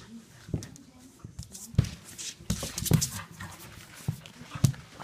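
Two dogs play-wrestling on a wooden floor: irregular scuffles and knocks of bodies and paws, with short dog noises mixed in.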